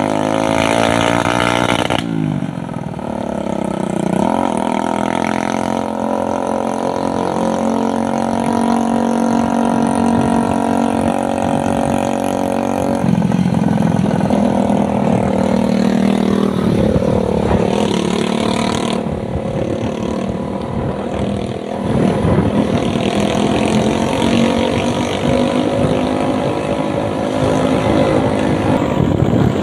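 Small motorcycle engine running while driving on the road. Its pitch holds steady, then jumps or drops abruptly several times.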